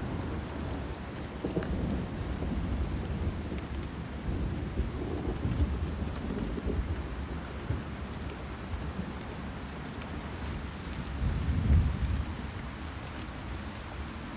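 Steady rain with a low rumble of thunder, which swells briefly about three-quarters of the way through.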